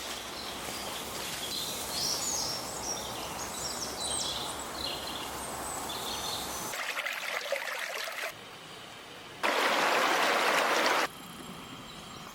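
Outdoor ambience of running water, with chirping bird calls over it in the first few seconds. The sound changes abruptly several times, and a louder, even rushing noise lasts about a second and a half near the end.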